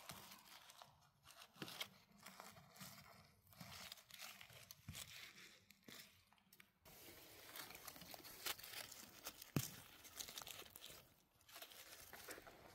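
Faint, irregular rustling and crunching of dry forest-floor litter (moss, needles and twigs) while mushrooms are being picked by hand, with scattered small snaps and one sharper crack about ten seconds in.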